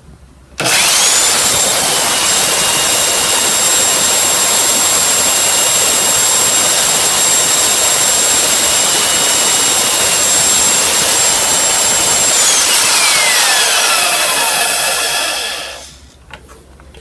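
Electric drill driving a homemade mini lathe, switched on suddenly and running at full speed with a loud, steady high whine. About twelve seconds in it is let go and winds down, the whine falling in pitch until it stops near the end.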